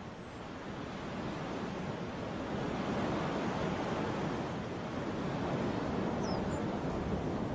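Snowstorm wind blowing, a steady rushing noise that grows louder over the first few seconds and then holds.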